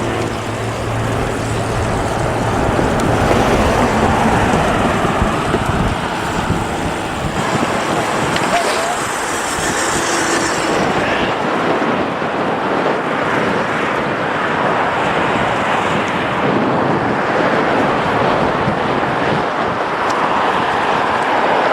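Steady road noise heard from a moving bicycle: wind on the microphone mixed with passing car traffic. A low engine hum runs for the first couple of seconds.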